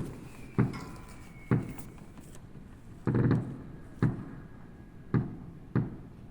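Fireworks exploding: a string of separate bangs about a second apart, each fading quickly, with one longer crackling burst about three seconds in.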